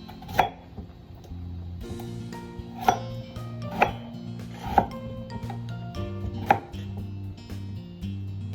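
Kitchen knife chopping on a cutting board: five sharp, separate strikes spaced roughly a second apart, over soft background music.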